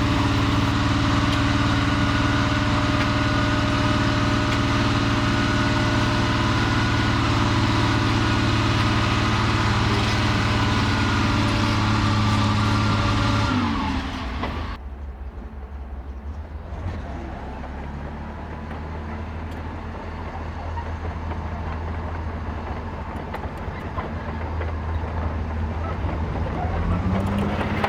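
Tiger I tank's Maybach V12 petrol engine running steadily under load, its pitch dropping about halfway through. Straight after, the engine sound turns abruptly quieter and duller, then slowly grows louder again.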